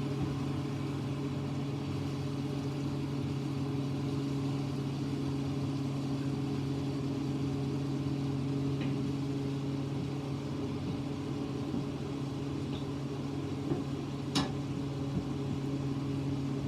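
A fan motor hums steadily and evenly, with a single sharp click near the end.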